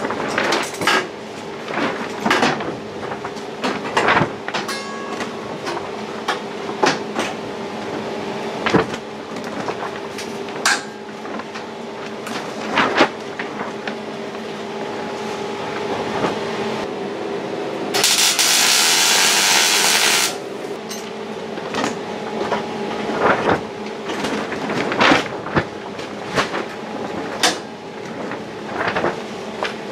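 Repeated metallic clicks and clanks of locking-pliers clamps being fitted and snapped shut on a steel wheel-arch repair panel. About two-thirds of the way through, a dense hiss-and-crackle lasting about two seconds, typical of a short MIG tack weld fixing the panel in place.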